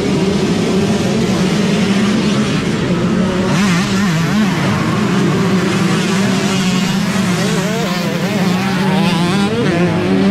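A pack of youth dirt bikes launching together off a race start, many engines revving hard at once. Their overlapping pitches waver up and down as the riders pull away.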